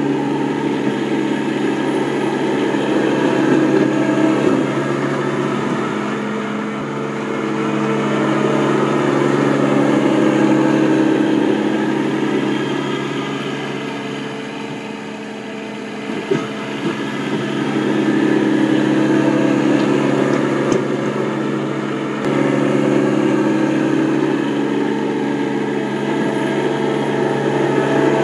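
Diesel engine of a Yanmar SC2450 compact 4x4 tractor running steadily under load while plowing snow. It fades as the tractor moves away around the middle, then grows louder again as it comes back.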